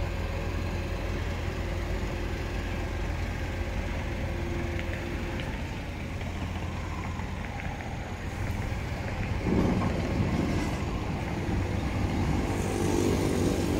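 Diesel truck engine running steadily, then louder and rougher in stretches from about two thirds of the way through, as the small Isuzu garbage compactor truck climbs onto the tilted bed of a flatbed recovery truck.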